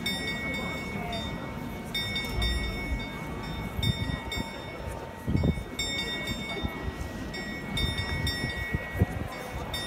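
A single small bell on the Prague Astronomical Clock rung again and again during the apostles' procession, one clear ringing pitch freshly struck every couple of seconds, over the murmur of a crowd.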